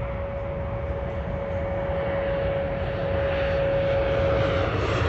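Business jet on final approach, its turbofan engines giving a steady whine over a rumble that grows louder as it comes nearer.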